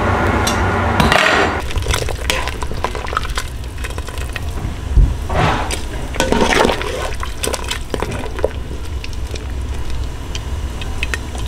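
A metal ladle stirring in a large enamel stockpot of squirrel stew broth, scraping and clinking against the pot with splashing liquid. The loudest moments come about five and a half and six and a half seconds in. It opens with about a second of steady mechanical hum that cuts off suddenly.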